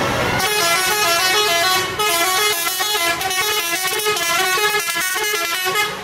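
A bus's multi-tone "telolet" horn playing a quick tootling tune of short stepped notes, starting about half a second in, with a brief break near two seconds.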